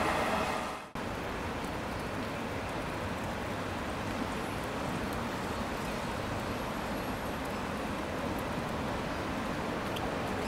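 Rumble of departing freight wagons fading out in the first second, then, after an abrupt break, a steady even hiss of rain falling, with no distinct engine note.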